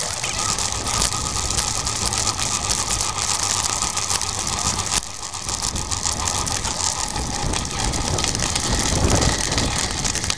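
Wind noise on the microphone and the rattle of a bicycle being ridden over paved and gravel paths. The sound changes abruptly about halfway through.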